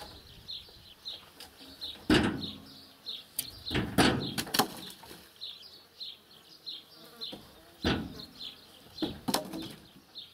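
Birch poles thrown down from a truck bed landing on a heap with wooden thuds and clatters, a handful of times, the loudest about two seconds and four seconds in. A faint high chirp repeats about three times a second throughout.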